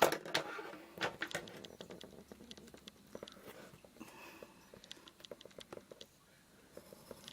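Plastic wrapping on a box being picked at and crinkled by hand. It makes irregular clicks and crackles, loudest at the start and sparser later on.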